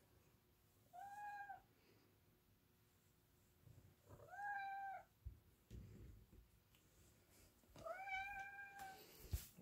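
Tabby house cat meowing three times, a few seconds apart: short, even-pitched meows, the third the longest. A brief rustle near the end.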